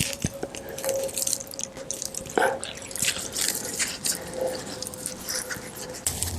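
Hands digging through loose soil and pulling out a sweet potato: irregular crackles, snaps and scrapes of dirt and roots, with a faint steady hum underneath.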